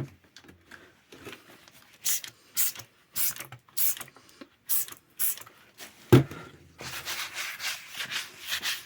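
Hand rubbing and scraping strokes on a fireplace's glass door panel: separate strokes about every half second, a sharp knock about six seconds in, then quicker continuous rubbing.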